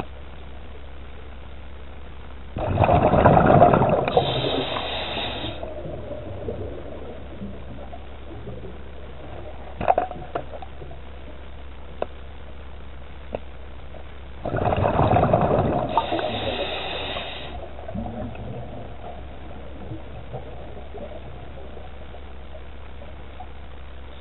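Scuba diver breathing through a regulator underwater: two breaths about twelve seconds apart, each a loud rush of bubbles followed by a higher hiss, over a steady low hum and a few faint clicks.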